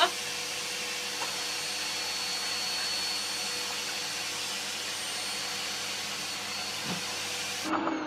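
Vacuum cleaner running steadily, an even rushing hiss with a faint high whine, cutting off suddenly near the end.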